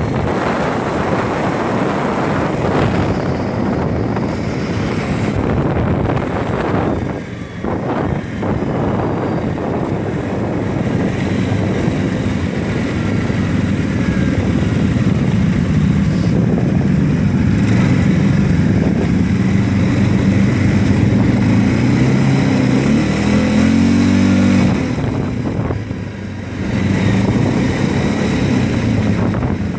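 Quad bike (ATV) engine running under way with wind and tyre noise; the engine note climbs as it revs up about two-thirds of the way through, and the sound drops off briefly twice as the throttle eases.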